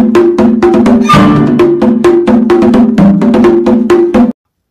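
Upbeat background music with a fast, even percussive beat over a repeating pitched riff, cutting off suddenly near the end.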